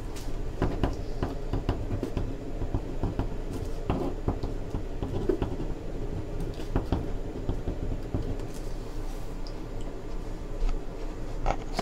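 Scattered small clicks and knocks of handling over a steady low room hum.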